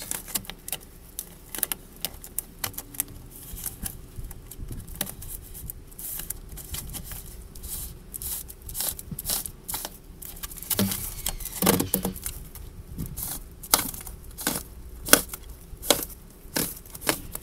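Irregular clicks, taps and crinkling of a plastic RV sewer hose and its fitting being handled and worked together by hand. A few louder clicks come near the end.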